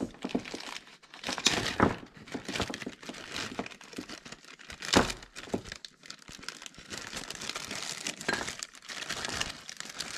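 Plastic zipper-lock bag crinkling and rustling irregularly as hands handle and open it, with a few sharper, louder crackles.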